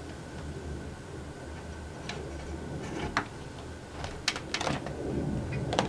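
Several light clicks and taps at irregular intervals over a low steady hum.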